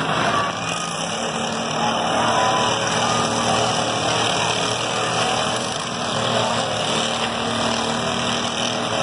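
Several riding lawn mower engines running at once in a demolition derby, a steady mixed engine drone.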